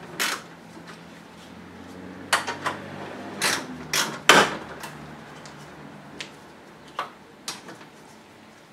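Scattered clicks and clinks of hand tools on metal and plastic as a socket wrench works 10 mm bolts loose, with a faint low hum underneath for the first half.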